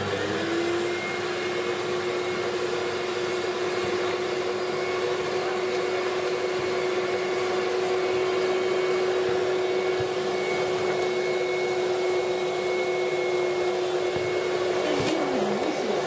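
Vacuum cleaner running steadily: a constant motor whine over the rush of air. Its pitch climbs to running speed in the first half second as the motor comes up after being switched on.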